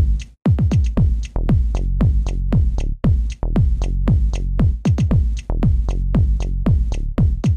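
Electronic dance music with a steady drum-machine beat: deep kick drums that drop in pitch, each with a sharp high tick.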